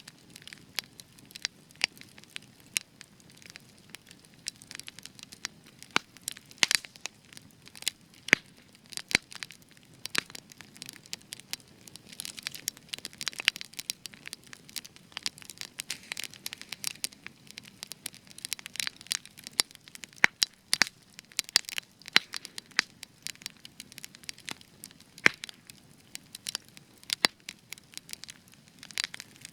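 Spruce wood burning in a campfire, crackling with many sharp irregular pops and snaps over a faint low hiss of flame. The spruce gives an extra crackling sound.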